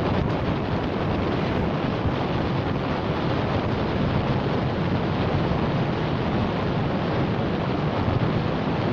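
Steady wind noise buffeting the microphone on a 70cc motorcycle moving at road speed.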